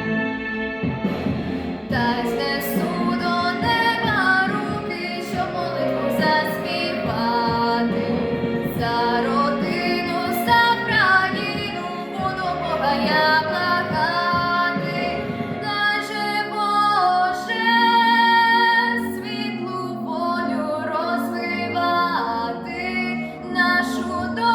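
A girl's solo voice singing a Ukrainian song over a backing track, her melody coming in about two seconds in after a short instrumental passage.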